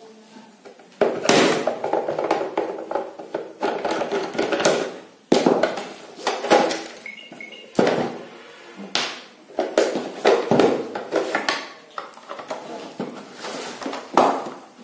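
Clattering, knocking and scraping of a computer UPS's plastic case and metal cover as it is handled and pulled open, in repeated bouts of clatter with short pauses between them.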